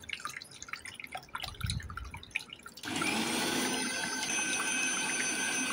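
Miniature mixer grinder's small electric motor starts about three seconds in and runs steadily with a whine, grinding bread pieces into crumbs. Before it, light dripping water from a small fountain.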